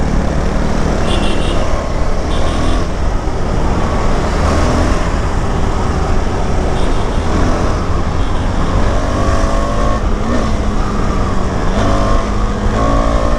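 KTM 390 Adventure's single-cylinder engine pulling hard as the bike accelerates, its pitch climbing in rising sweeps as it goes up through the gears, about two-thirds of the way in and again near the end. Steady wind rush on the microphone sits underneath.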